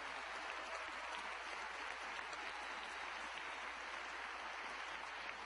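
Rally audience applauding steadily in a large hall after an applause line.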